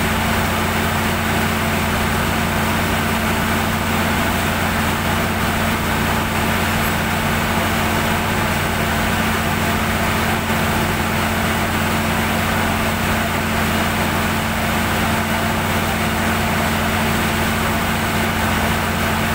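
Perkins diesel generator set running steadily, a constant, even engine hum.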